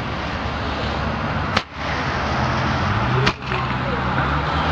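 A firework still burning with a steady loud hiss, broken by two sharp cracks, one about a second and a half in and one about three seconds in.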